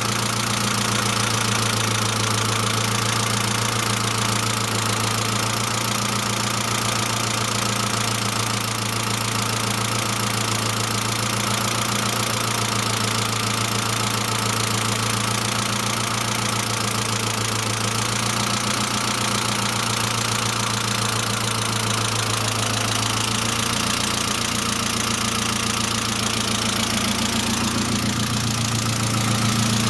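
Saab 900 four-cylinder engine idling steadily with a constant valve-lifter tick after an engine and head rebuild. The tick is typical of low oil pressure, and the owner suspects the oil pressure relief valve.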